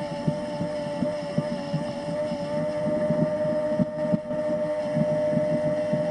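Radio-controlled model excavator's electric drive whining at a steady pitch while its upper body slowly slews, with an irregular low clatter underneath.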